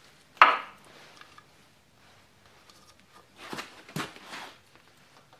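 A sharp knock about half a second in, then, a few seconds later, scuffing and a click as a round red taillight is pushed into a rubber grommet slicked with silicone spray.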